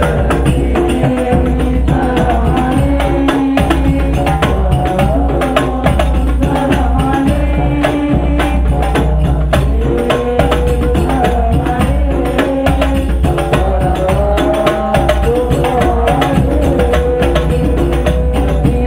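Sholawat, Islamic devotional songs, sung by male voices through amplified handheld microphones. Frame drums with jingles, in the hadrah style, beat a steady, dense rhythm under the voices, loud throughout with a heavy bass.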